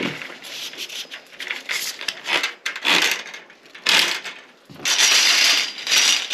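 Handling noises: a run of rubbing and scraping with a few clicks and clatters, and a longer hiss-like rush about five seconds in.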